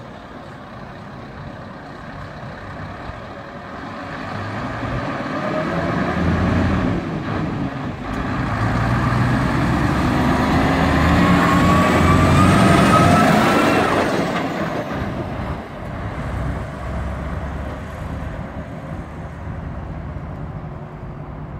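Scania T-cab lorry's diesel engine pulling away, revving up through the gears with the pitch rising twice, growing louder to a peak about two-thirds of the way through, then fading as the lorry drives off.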